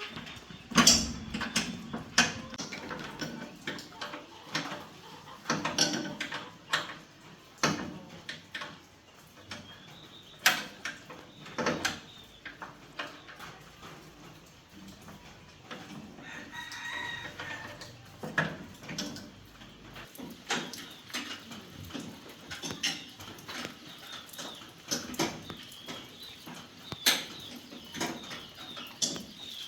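Irregular sharp knocks and clatter throughout, with a rooster crowing once about sixteen seconds in and chickens clucking.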